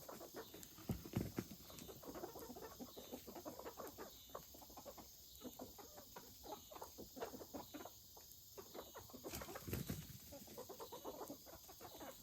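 Chickens clucking faintly, with scattered soft taps and rustles.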